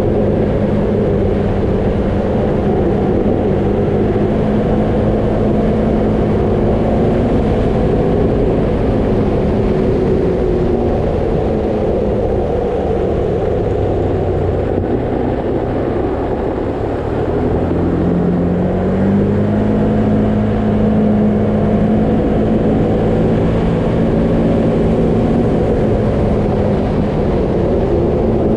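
Vehicle driving on a gravel road: a steady engine note under the rumble and crunch of tyres on gravel. About halfway through the engine note drops as the vehicle slows, then climbs again as it picks up speed.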